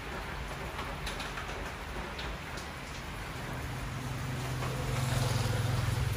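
Steady rain falling on a wet road and pavement, with a low engine hum that grows louder from about four seconds in.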